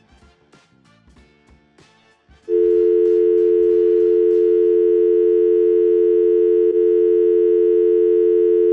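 Quiet background music with a regular beat, then about two and a half seconds in a loud, steady telephone dial tone of two held tones cuts in and holds, with one brief dip partway through.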